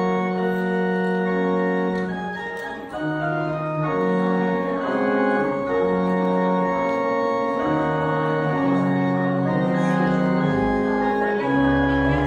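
Church organ playing slow, held chords, the notes changing about once a second, with deep bass pedal notes sounding near the end.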